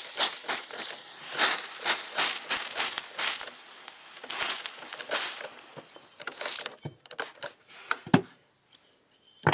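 Water sprayed onto freshly soldered, still-hot brass sizzling and crackling, dying away about six and a half seconds in. A few light knocks follow near the end.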